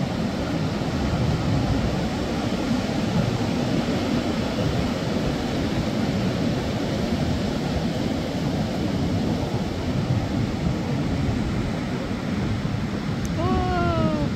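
Heavy ocean surf breaking steadily on the beach, a constant wash of noise. Near the end, one short call that falls in pitch.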